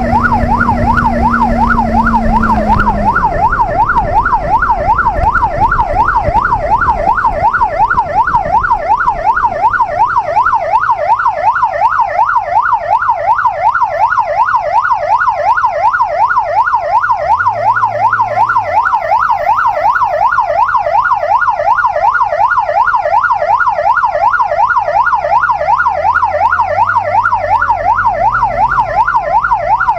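Police motorcycle's electronic siren on a fast yelp, rising and falling several times a second and loud throughout. Underneath, the bike's inline-four engine note drops about three seconds in as it slows, with a few brief revs later on.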